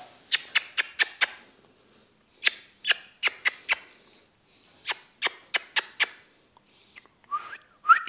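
Three quick runs of about five sharp, high clicks each, the runs about a second apart, followed near the end by a short rising whistle.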